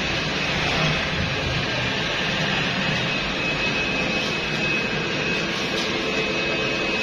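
Steady drone of factory machinery running, a constant hiss with a thin high-pitched whine over it.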